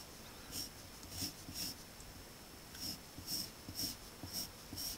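Pencil scratching on paper in short sketching strokes, about eight light strokes at an irregular pace as a rounded outline is drawn.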